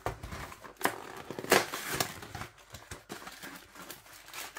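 Cardboard carton of a frozen ready meal being opened and handled: irregular rustling and scraping of cardboard, with a few sharper scuffs about one to two seconds in.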